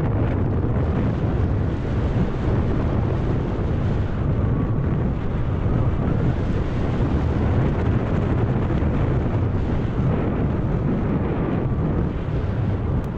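Heavy wind buffeting on an action camera's microphone mixed with the rumble and rattle of mountain-bike tyres running fast downhill over a gravel and dirt track, a loud, steady low rush.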